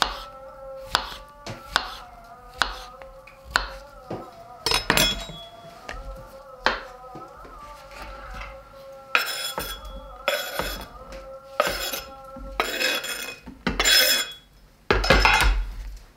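Knife strokes on a cutting board, single sharp chops about once a second over soft background music with held notes. From about halfway through, longer clattering and scraping of kitchen utensils, loudest near the end.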